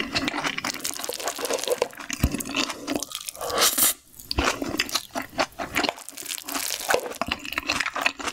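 Close-miked chewing of a mouthful of fried rice: a dense run of small wet clicks, smacks and crunches. A fresh spoonful goes into the mouth about halfway through.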